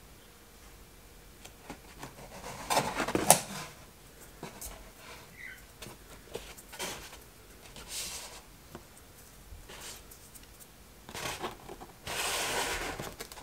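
Foam board box panels handled and rubbed on a wooden table: scattered rustles and scrapes, a sharp knock about three seconds in, and a longer scraping rustle near the end.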